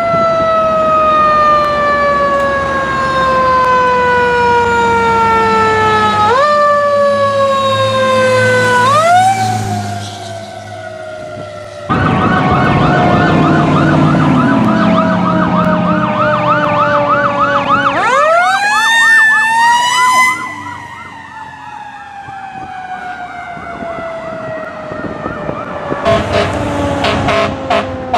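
Fire engine sirens on an emergency run. One siren wails down in a long, slowly falling pitch and is wound back up briefly twice. After that, a fast warbling yelp joins a wail that sweeps up about two-thirds of the way through and then slowly falls away.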